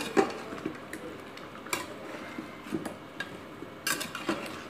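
Metal spoon stirring chunks of sweet pumpkin in spice paste in an aluminium pot, with irregular knocks and scrapes of the spoon against the pot.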